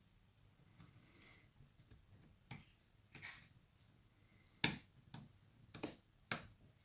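Faint, irregular sharp clicks of a medium hook pick working the pin stacks of a pin tumbler lock held under tension, with pins clicking as they set; about six clicks, spaced unevenly.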